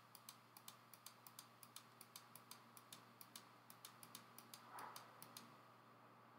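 Faint computer mouse clicks, repeated at about four a second and stopping a little after five seconds in, as points are clicked in one after another to draw a line in map software.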